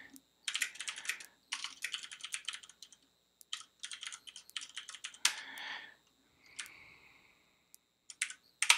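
Typing on a computer keyboard: quick runs of keystrokes in three bursts over the first five seconds, then a few more keys shortly before the end.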